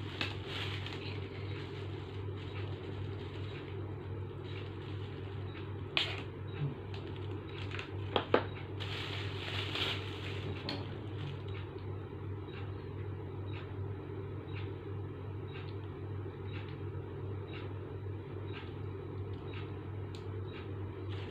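A steady low hum, with a few sharp clicks and knocks about six and eight seconds in, then faint regular ticking about twice a second.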